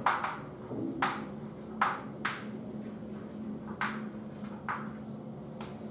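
Chalk striking and scraping on a blackboard as words are written: a series of short, sharp clicks, about seven of them, unevenly spaced.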